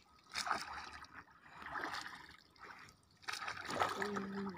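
A wooden paddle splashing and swishing through calm water in regular strokes, about one every second and a half, as a dugout canoe is paddled. A steady low hum comes in near the end.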